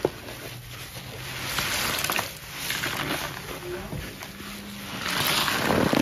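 Rubber-gloved hands squeezing and squishing thick wet Ajax cleanser paste: swelling wet squelches with fine crackling of the foam, loudest about two seconds in and again near the end.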